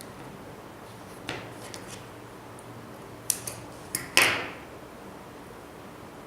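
Handling noise from work on a phone and its adhesive tape: a few light clicks and taps, the loudest about four seconds in, over a faint steady hiss.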